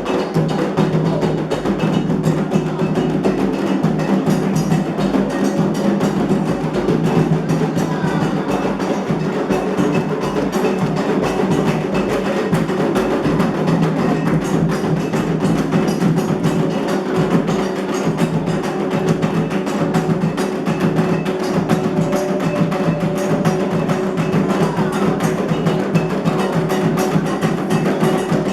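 Candomblé ritual percussion: atabaque hand drums and a struck bell playing a fast, steady, continuous rhythm.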